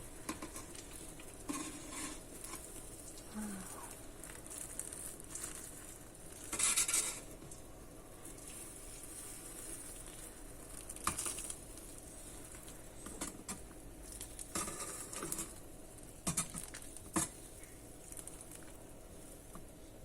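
Boiling water poured over new dish sponges in a container, with a faint steady hiss, a patter of water and scattered clinks and knocks of kitchenware; the loudest burst comes about seven seconds in.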